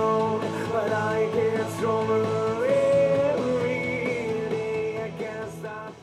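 Rock music: a held, gliding melody line over steady chords, the level sinking near the end as it fades out.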